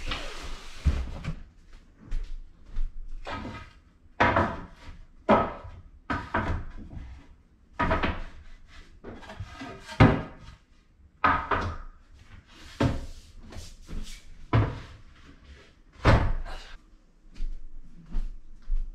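Bed frame being dismantled by hand: a string of irregular knocks, thuds and bangs as its parts are pulled loose and set down, roughly one a second, with a couple of louder bangs.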